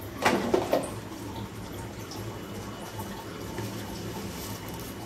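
Water splashing in an aluminium pressure cooker holding red lentils soaking in water: a few loud splashes in the first second, then a steady low hum with faint water sounds.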